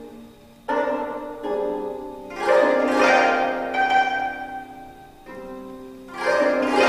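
25-string gayageum, a Korean zither, plucked in a contemporary piece. After a short pause, a chord sounds about a second in, then a loud flurry of many strings around two and a half seconds in rings out and slowly fades. Another loud plucked chord comes near the end.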